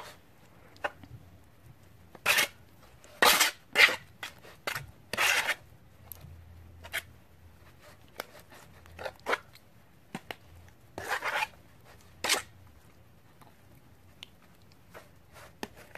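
Spoon stirring and scraping sticky glue slime in a bowl, in short irregular strokes, as saline solution is mixed in to activate it.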